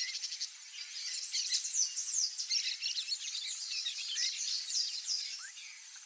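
Rapid, high, descending chirps of small birds calling in the background, over a steady high insect buzz; the chirping is densest through the middle of the stretch.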